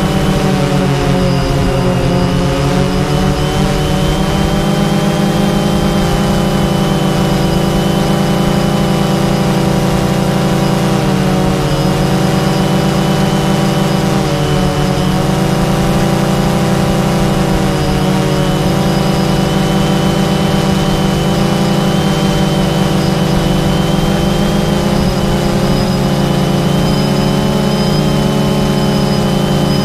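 A drone's electric motors and propellers running steadily, close to the onboard camera, their pitch dipping briefly a few times as the throttle eases.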